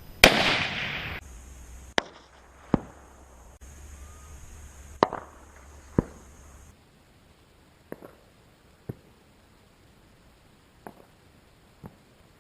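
Rifle shots heard from positions down range: one loud report with a long rumbling tail near the start, then four sharp cracks over the next few seconds, and four fainter, more distant-sounding cracks in the second half.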